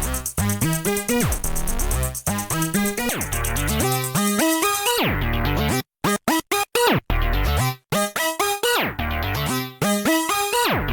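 Electronic background music: stepping synthesizer notes with falling pitch sweeps, chopped into short stutters with brief silences about six to eight seconds in.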